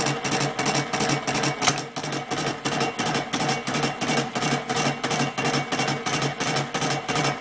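Mini metal lathe turning the outer rim of a half-inch mild steel faceplate with a carbide insert tool: a steady motor-and-gear hum under an even ticking of about five or six a second, with one sharper click about two seconds in.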